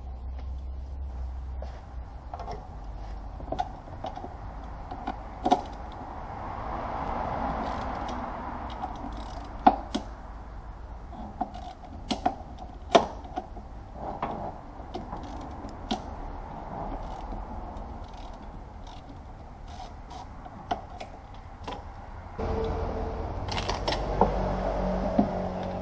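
Scattered sharp clicks and clinks of tools and parts being handled in a car's engine bay, over a low hum. Near the end, music comes in.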